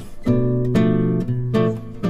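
Background music: an acoustic guitar playing plucked notes and chords, each ringing on before the next.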